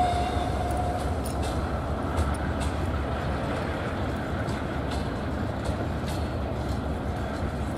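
Freight train hauled by a 2TE116UD diesel locomotive: a steady low diesel rumble with the noise of the wagons and scattered faint knocks. A brief thin squeal sounds in the first second.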